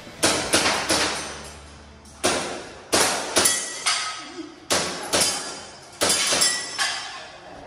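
A string of about ten sharp airsoft pistol shots in quick pairs and triples, mixed with the metallic clank and brief ring of BBs striking steel targets.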